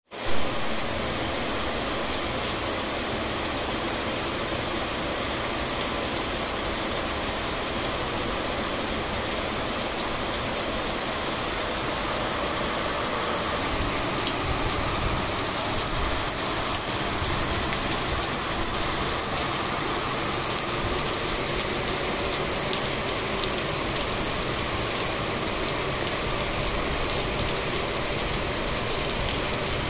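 Heavy rain falling, a steady, even hiss that holds at the same level throughout.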